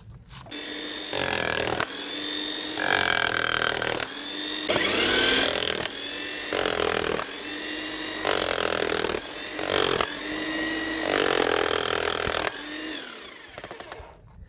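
Hilti TE 70 rotary hammer running, with about eight louder bursts of hammering between stretches of the motor alone. The motor winds down twice, the last time near the end. This is the rebuilt tool being test-run.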